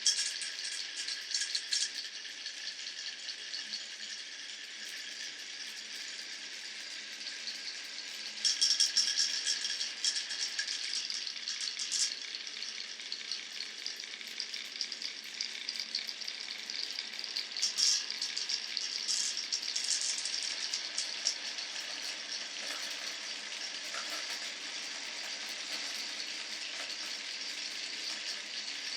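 Glass marbles rolling and clattering along a wooden marble run, a steady dense rattle of small clicks. It gets louder and busier twice, about nine to twelve seconds in and again around eighteen to twenty-one seconds.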